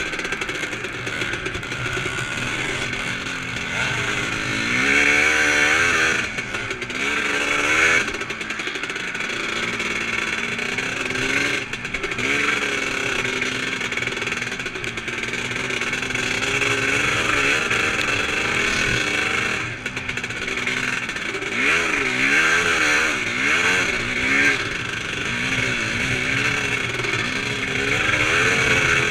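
Vintage 350-class motocross motorcycle engine heard from on board, revving up and dropping back over and over as it is ridden round the track. It is loudest in two spells of hard revving, about five seconds in and again after about twenty seconds.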